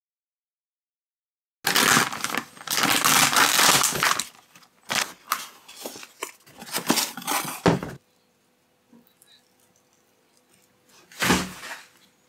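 Paper wrapping crinkling and tearing as it is peeled open from a plastic tray, in loud, irregular rustling bursts for about six seconds. Near the end, one short scrape as a knife is pushed into the loaf.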